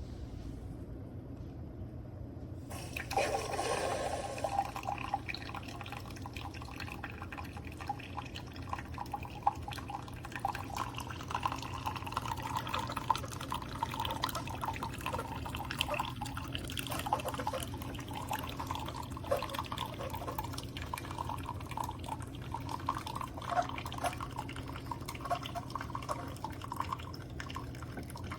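Keurig K-Supreme single-serve pod coffee maker brewing: about three seconds in, liquid starts running and then trickles and drips steadily into the cup, over a steady low hum.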